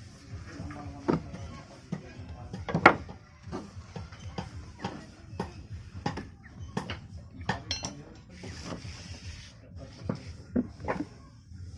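Irregular metallic clicks and knocks of small electric planer parts being handled while a washer and a 608 bearing are fitted.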